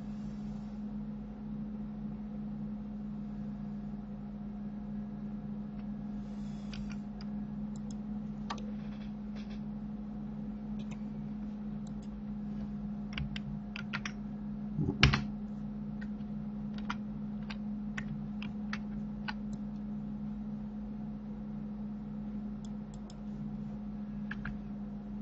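Scattered clicks and keystrokes of a computer keyboard and mouse, with a louder knock about fifteen seconds in, over a steady low hum.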